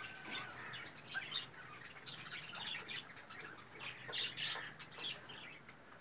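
Birds chirping with many short, high calls, scattered and irregular, with a brief flurry of wingbeats near the start as a red golden pheasant moves off its perch.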